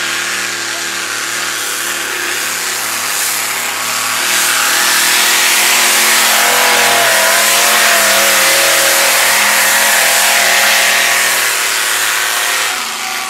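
The engine of a modified pulling car running flat out as it drags a weight-transfer sled down the track. It is a loud, steady high-revving run that gets louder about four seconds in as the car passes close, then drops off near the end as it pulls away.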